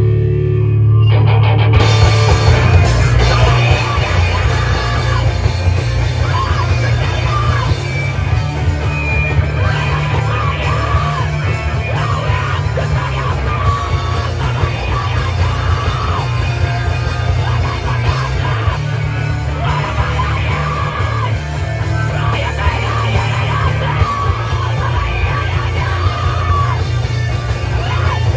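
Live rock band playing loud, with drums, electric guitars and yelled vocals. It opens on a low bass drone, and the full band crashes in about a second and a half in.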